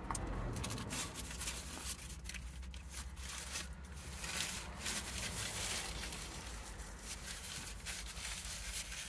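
Eating close to the microphone: bites into crusty Maltese ftira sandwiches, chewing, and a paper wrapper rustling, as a run of short crackly noises.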